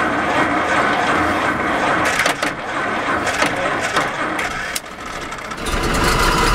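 Lycoming V-12 engine of a 1936 Duesenberg, just after starting, running unevenly with crackling pops. It dips briefly about five seconds in, then picks up into a steady, deeper running near the end.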